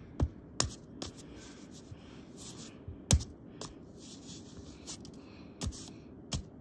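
A screwdriver jabbing and scraping at a hand-drawn paper disc on soft bedding: irregular sharp taps, the loudest about three seconds in, with papery scratching and rustling between them.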